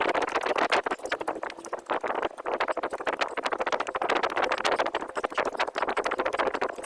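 Rhythmic footfalls of a person running or walking, a quick run of knocks over steady rustling noise.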